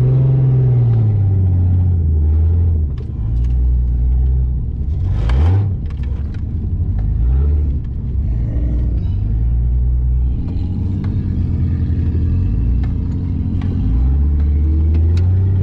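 Off-road vehicle engine running hard on sand, its revs climbing and dropping several times, with a brief sharp surge about five seconds in.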